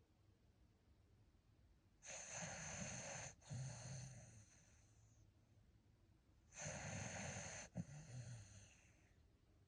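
Dog snoring in its sleep: two long, noisy snoring breaths, each in two parts with a short break between. The first comes about two seconds in, the second about four and a half seconds later.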